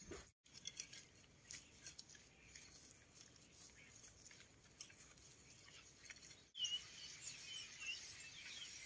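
Faint scratching and soft clicks of a garden rake dragged through loose, freshly dug soil. About six and a half seconds in, a small bird starts chirping.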